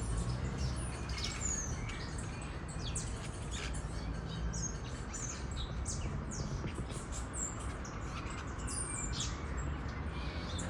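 A flock of parakeets chattering: many short, high chirps and squeaks overlap without a break, over a steady low rumble.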